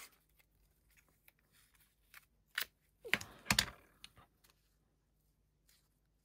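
Masking tape being pulled from a roll in a tape dispenser: a few short rips and clicks, the loudest cluster about three seconds in.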